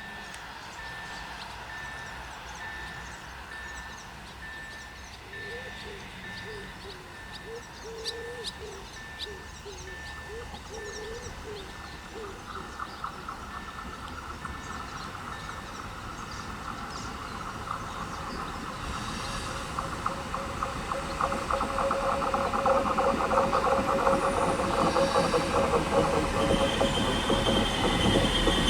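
A train approaching on curved track, its rail and wheel noise rising steadily over the second half, with wheels starting to squeal near the end. In the first part a high beep repeats over and over, then stops.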